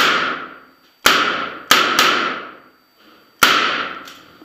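Five gunshots at uneven spacing: one at the start, one about a second in, a quick pair near two seconds, and one about three and a half seconds in. Each shot is followed by a long, echoing decay. These are shots fired by a competitor on a timed practical-shooting stage.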